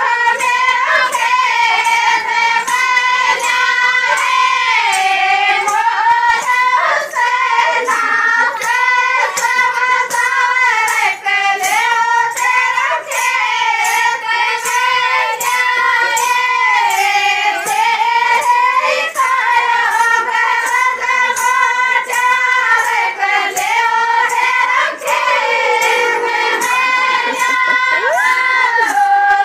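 Rajasthani song: a high-pitched vocal melody over a steady, driving percussion beat.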